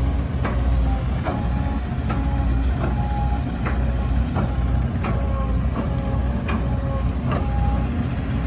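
Volvo EC200D excavator's diesel engine running steadily under load, with repeated metallic clanks and short squeaks from the machine working, a clank coming roughly every second or less.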